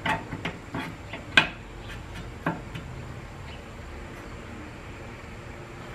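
Light metal clicks and taps from transmission parts being worked into the aluminium 47RE case as the rear servo apply lever and shaft are fitted. About six sharp taps come in the first three seconds, the loudest about a second and a half in, then only faint room tone.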